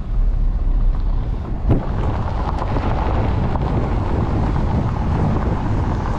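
Vehicle rumble on a dirt road heard from inside the cab, then, after a sharp click about two seconds in, wind buffeting the microphone outdoors.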